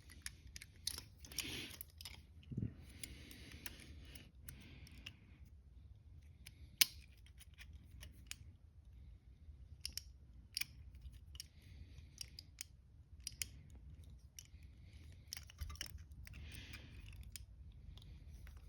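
Lock pick working in the keyhole of double-locked ASP Century handcuffs: faint scattered small metal clicks and scraping, with one sharper click about seven seconds in.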